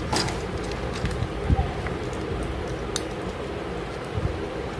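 Hard plastic toy parts clicking and scraping now and then as a head piece is pressed onto a plastic toy bicycle, over a steady fan hum.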